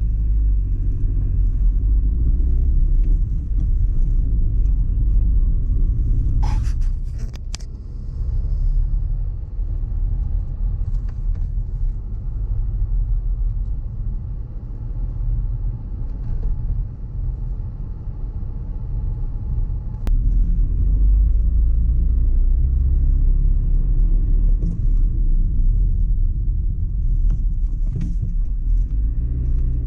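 Car driving, heard as a heavy low rumble of engine and tyres on the road. It eases off for a stretch a quarter of the way in and builds again about two-thirds through, with a brief rattle of clicks just before it eases.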